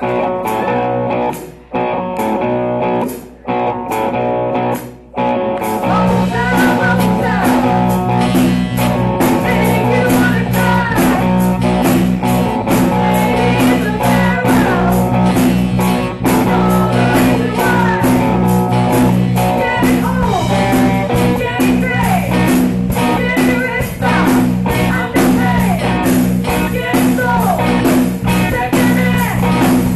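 A live student rock band playing with guitars and drums: a few short chords broken by brief pauses, then about six seconds in the full band comes in steadily with a strong low bass.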